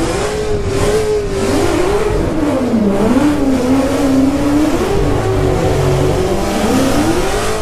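A car doing a burnout: its engine is held high in the revs, dipping and climbing again several times, while the tyres spin.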